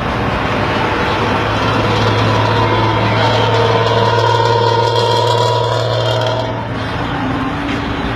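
Bus diesel engine revved through a loud aftermarket racing exhaust with a tinny, rumbling note. The engine climbs about two seconds in, is held up for a few seconds, then is let back down near the end.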